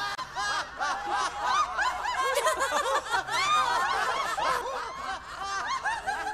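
Several cartoon voices laughing at once, short high chuckles and giggles overlapping in a continuous tangle.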